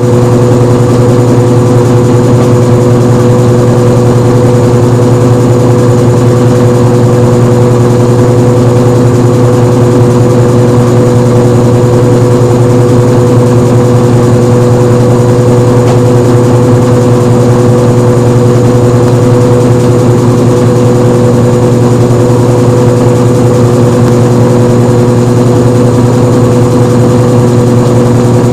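Washing machine running its spin cycle: a loud, steady motor hum with constant whining tones over a rushing drum noise, cutting in suddenly and holding unchanged.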